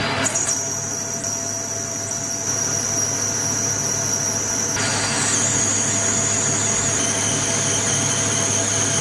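A workshop power tool running steadily over a low hum, with a high-pitched whine that starts a moment in and steps up slightly in pitch about five seconds in.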